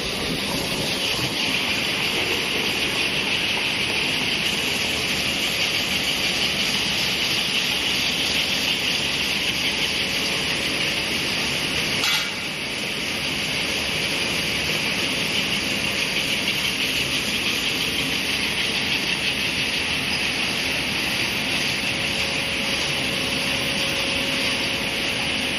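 Gaoke GK-A800-BL automatic carton making machine running at a steady speed, its belts and rollers carrying carton blanks with a constant mechanical whir and hiss. A single sharp click about halfway through.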